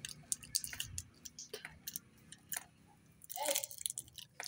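Small wet clicks and mouth smacks of a child eating a cough lozenge, with a brief voice sound about three and a half seconds in.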